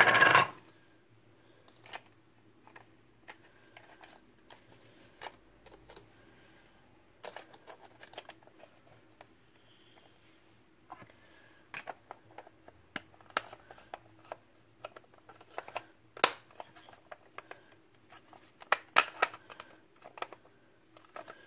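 Small plastic parts being handled and clipped together on a wooden table: scattered light clicks and taps, irregular and a few seconds apart, some in quick clusters. There is a short louder burst of handling noise right at the start.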